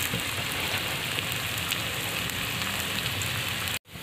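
Small-cut potatoes frying in hot oil in a kadai: a steady sizzle flecked with little crackles. It breaks off for an instant near the end.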